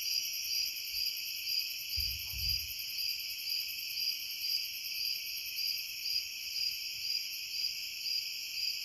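A chorus of night insects keeps up a steady, high-pitched sound, with one pulsing note repeating evenly a few times a second. A single low, dull thump comes about two seconds in.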